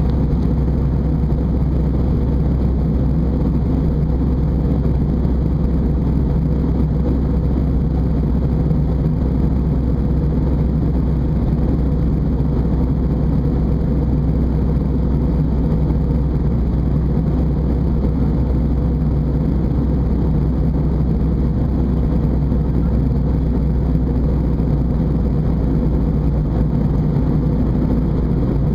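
Airbus A320 cabin noise in flight: the steady drone of the jet engines and airflow heard from inside the passenger cabin, a deep even rumble with a faint hum that does not change.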